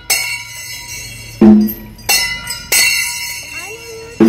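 Large metal bells struck about five times at uneven intervals, each strike ringing on with several steady high tones; the loudest strike comes about a third of the way in.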